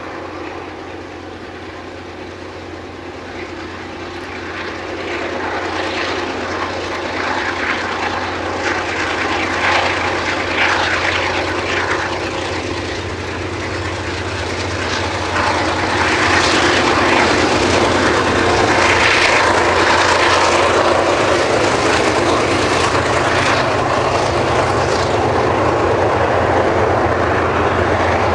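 Two diesel-electric freight locomotives working a train, their engines droning and growing steadily louder as they approach, loudest about two-thirds of the way through as they pass. Near the end come the container wagons rolling by.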